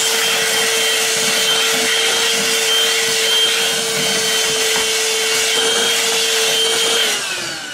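HoLife HM036BW handheld cordless vacuum running with a steady whine, sucking up wet oatmeal and water from a tray. It is switched off about seven seconds in, the whine falling in pitch as the motor winds down.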